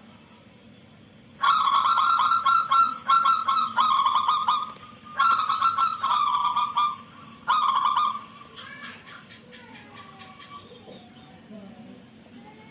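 Zebra dove (perkutut) singing: about five bursts of rapid, trilled cooing notes over some six seconds, followed by fainter, softer calls. A faint steady high whine runs beneath.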